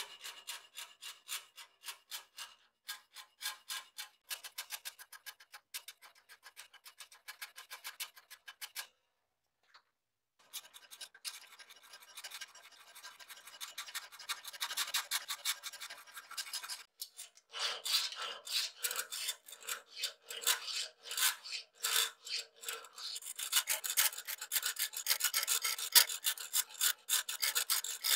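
Hand files rasping back and forth over rusty steel of a sword fitting, taking off the rust, in quick repeated strokes. The strokes stop briefly about a third of the way in. Later a thin round file works through a hole in the part.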